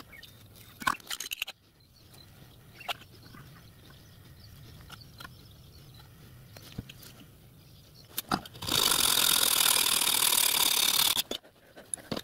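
Fast-forwarded bench metalworking on aluminium sheet: scattered light clicks and taps of the metal and tools being handled. Near the end a loud, steady harsh noise runs for nearly three seconds, then cuts off.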